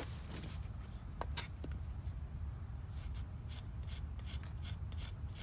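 A knife blade shaving thin kindling from a stick of firewood: scattered scrapes, then from about three seconds in quick, regular scraping strokes, about four a second, over a steady low rumble.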